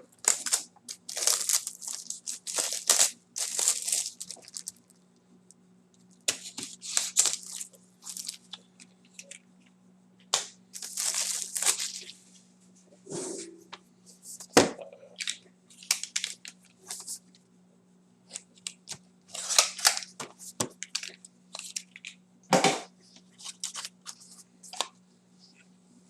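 Plastic shrink-wrap being torn and crinkled off a sealed box of trading cards, in many short, irregular rips and rustles. There is a single sharp knock a little past the middle, and a faint steady hum runs underneath.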